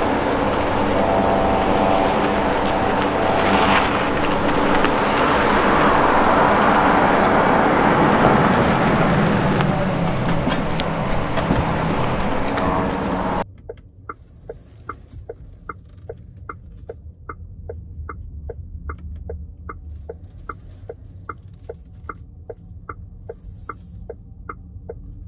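Cupra Born electric car driving past: tyre and road noise swells to a peak and eases off. Then, much quieter, inside the car, an even ticking about twice a second from the car's turn-signal indicator.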